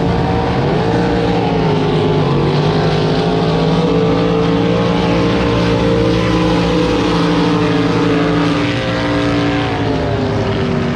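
Drag boat engine running loudly and steadily, its pitch dipping at the start, climbing slowly, then easing down near the end.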